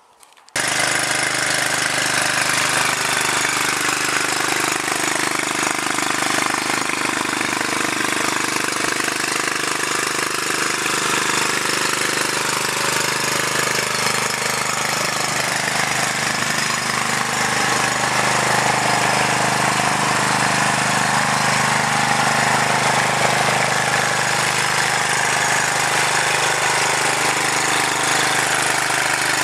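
Small engine-generator on a trailer-mounted wood gasifier, running steadily at an even speed on wood gas. The sound cuts in abruptly about half a second in.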